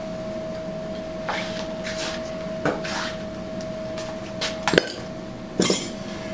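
Metal tools and motorcycle parts being handled: scattered clinks and knocks, two sharper knocks near the end, over a steady background hum.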